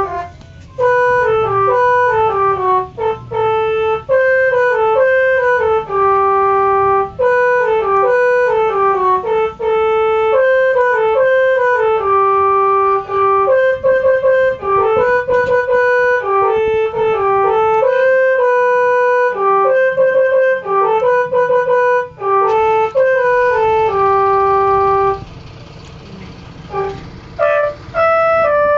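Multi-tone 'telolet' bus horn playing a quick tune of short stepping notes, with a break of about two seconds near the end before the tune starts again.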